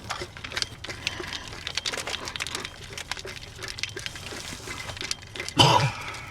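Ice cubes clicking and rattling against each other in a plastic drink bottle as it is handled, in small irregular ticks, with a brief louder knock or bump about five and a half seconds in.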